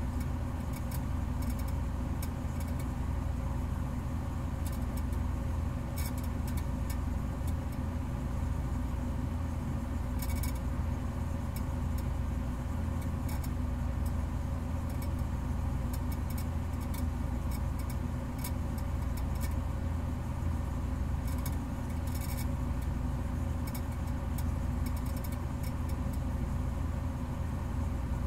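Steady low hum, unchanging throughout, with faint scattered crackles on top.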